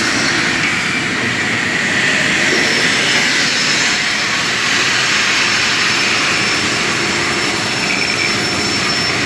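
Metalworking machinery running with a steady, loud hiss and a faint, constant high whine.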